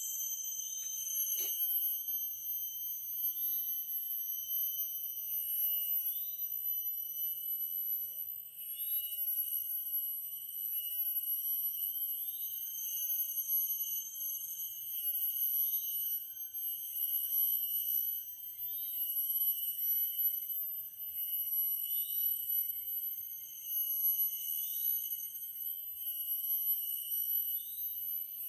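Forest insects buzzing: several steady high-pitched drones together, with a short rising chirp repeated about every second and a half. A single sharp click about a second and a half in.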